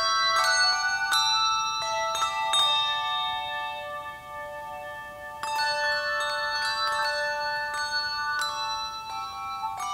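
Handbell choir ringing a tune in chords: bells struck in quick groups whose notes ring on and slowly fade, with the ringing dying down in the middle before a new run of chords starts about five and a half seconds in.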